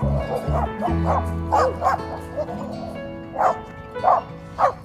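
A dog yipping and barking in short, high bursts several times, over background music.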